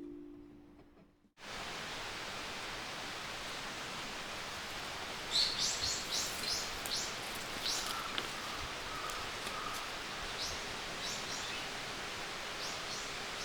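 Wild birds calling in a series of short, high, downward-sliding notes, in quick clusters about five seconds in and again near the end, over a steady hiss of outdoor ambience. Background music fades out in the first second.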